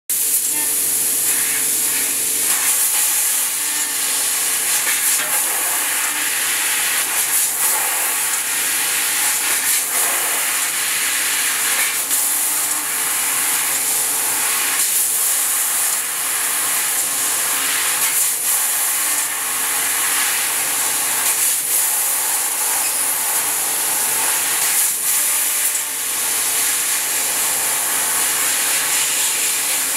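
6 kW fiber laser cutting head cutting 6 mm stainless steel sheet: a steady loud hiss of assist gas blowing through the nozzle and kerf, with a faint steady tone underneath and brief swells now and then.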